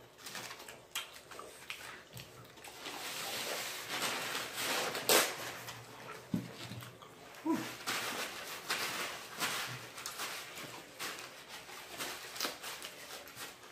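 Paper towel crinkling and rustling as hands are wiped, amid small smacking, chewing and clicking noises of eating at the table.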